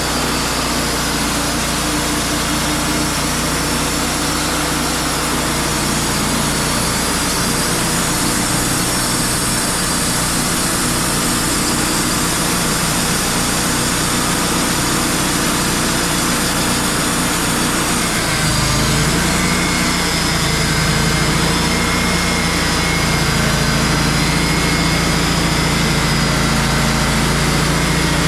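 Wood-Mizer portable band sawmill's engine running steadily under way. About eighteen seconds in, the engine note shifts and gets slightly louder.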